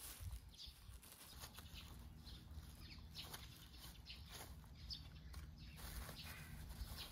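Faint, scattered rustles and scrapes of gloved hands working soil around a seedling planted through black plastic mulch, the plastic crinkling now and then.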